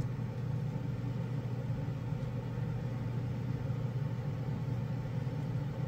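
Steady hum of a hobby spray booth's exhaust fan running.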